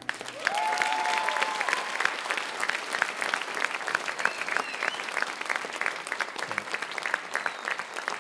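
Audience applauding at the end of a song, steady clapping throughout, with a few brief cheers rising above it near the start and around the middle.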